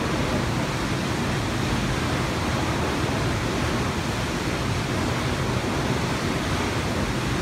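Steady rushing of water echoing in a rock-walled gorge swimming hole.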